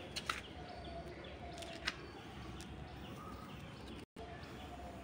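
Faint outdoor background with scattered distant bird chirps and a few light clicks; the sound drops out for a moment about four seconds in.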